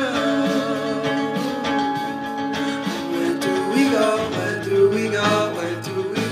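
Background pop song with guitar, and a singing voice holding and bending notes.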